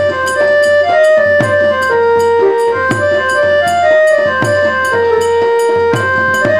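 Instrumental Odia folk music accompanying Danda Nacha: a melody of held notes stepping up and down over recurring drum strokes and a steady high tick.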